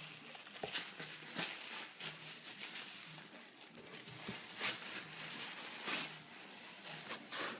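Tissue paper rustling and crinkling in short, irregular rustles as a small child's hands pull at and crumple it.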